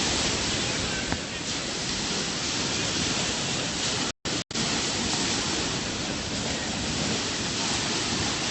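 Sea surf on the shore, a steady rushing noise. It cuts out completely twice, very briefly, about four seconds in.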